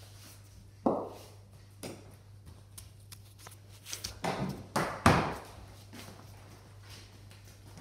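Cricket ball bowled on a concrete garage floor: a quick run of sharp knocks as it bounces and meets the bat, the loudest about five seconds in. Two single knocks come earlier, about one and two seconds in, and a steady low hum runs underneath.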